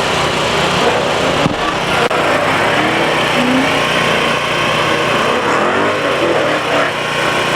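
Car engines running, with a steady, dense wash of engine noise and some shifting pitch partway through.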